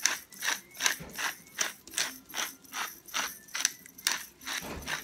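Hand pepper grinder being twisted back and forth, grinding pepper in a steady rhythm of short ratcheting strokes, about two or three a second.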